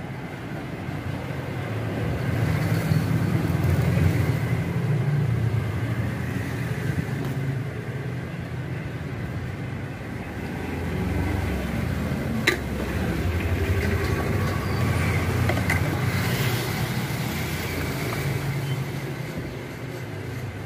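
Road traffic passing close by, its low rumble swelling twice, with one sharp click about halfway through.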